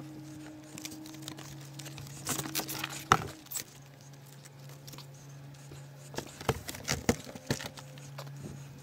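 A foam-wrapped Lectric XP 2.0 folding e-bike being lifted out of its cardboard shipping box: packaging rustles and scrapes, and the bike's metal parts knock and rattle in two clusters, about two to three seconds in and again about six to seven and a half seconds in. A steady low hum runs underneath.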